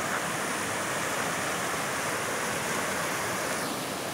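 Muddy floodwater from an overflowing reservoir spillway rushing over rocks in rapids: a steady, even rush of running water.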